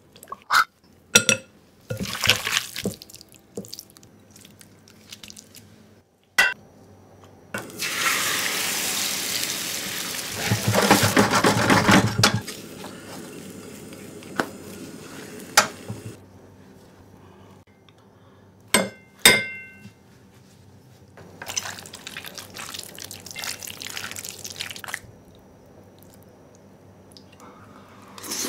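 A run of kitchen sounds: sauce poured in short streams from bottles onto raw beef in a glass bowl, with clinks of glass and utensils, then egg cooking in a frying pan with a steady sizzle, loud for several seconds before it settles. Chewing and eating near the end.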